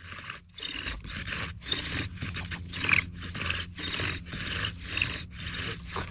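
Bow drill running: the wooden spindle grinds and squeaks in the hearth-board notch with each back-and-forth stroke of the bow, about two strokes a second. The spindle is drilling into the hearth board of Tree of Paradise wood to build an ember by friction.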